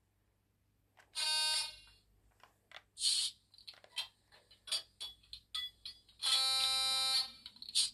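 Sound-decoder effects from an H0 model of a ČSD class 350 electric locomotive, played through its small onboard speaker. A short harsh tone sounds about a second in. A brief hiss and a run of sharp clicks follow, then a longer tone of the same kind near six seconds.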